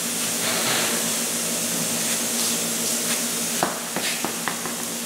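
Steady hiss over a low hum, with a few sharp clicks in the second half.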